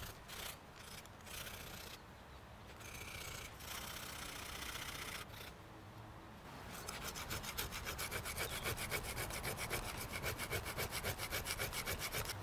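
A piece of metal fence wire ground back and forth in a groove on a rock, scraping. It is being sharpened into a fish hook. The strokes are slow and uneven at first, then become fast and even, about five a second, from about halfway through.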